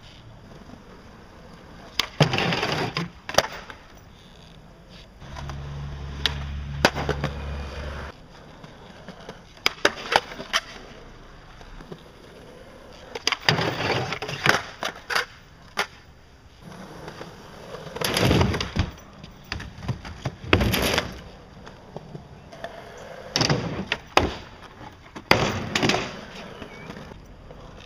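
Skateboard urethane wheels rolling on rough concrete, broken by sharp wooden clacks of tail pops and board landings. Around the middle there is a longer grinding rasp of the board sliding along a wooden box.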